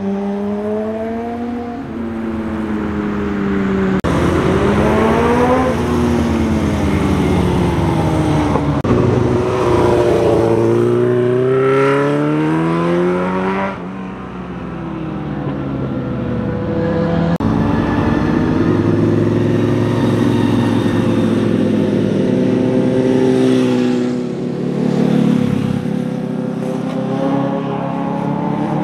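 Motorcycle engines passing one after another through a bend, revving up and down with gear changes so that the pitch rises and falls with each bike. The sound changes abruptly several times as one pass gives way to the next.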